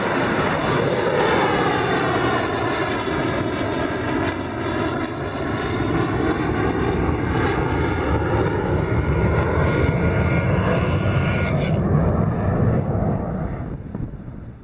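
Rocket motor roar of a missile just launched from a warship: a loud, steady rushing roar with a sweeping, phasing tone over the first few seconds as the missile climbs away. The hiss cuts off about twelve seconds in, and the roar then fades out near the end.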